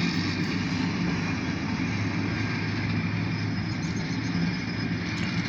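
Diesel locomotives of a light engine move running steadily as they pass, a continuous low engine drone.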